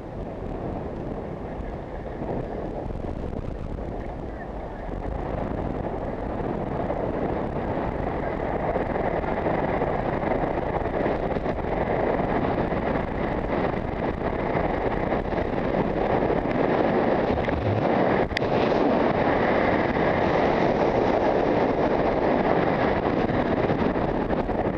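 Wind rushing over a body-worn camera's microphone and the scrape of sliding down a groomed ski slope over packed snow, growing louder as speed builds. One sharp click about two-thirds of the way through.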